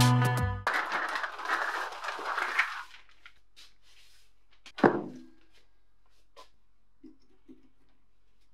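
Guitar music cuts off just after the start. Then comes the handling of a heavily rusted, crust-covered paper guillotine on a paper-covered bench: a rustle, one loud thunk about five seconds in, and a few faint taps near the end as a metal pick touches the crusted base.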